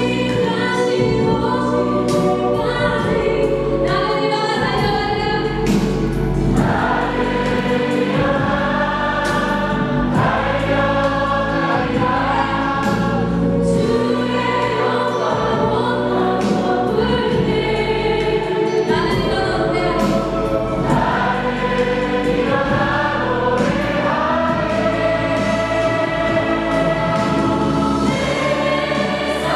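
A woman sings a gospel song live into a handheld microphone, her voice amplified over steady instrumental accompaniment.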